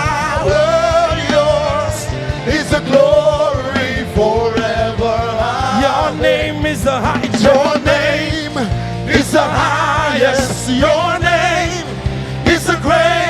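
Live gospel worship music: a singer with wide vibrato over a full band with bass and steady drums.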